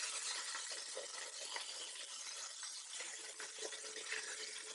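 Nutria meat sizzling as it browns in hot olive oil in an enamel cast-iron pot: a steady hiss with a few faint crackles.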